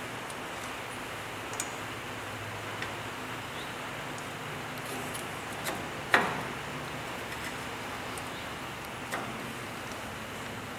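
A few sparse, sharp metal clicks and taps from hand-threading a nut onto a broken bolt and starting a screw into the nut. The loudest is a clink with a short ring about six seconds in, over a steady low hiss.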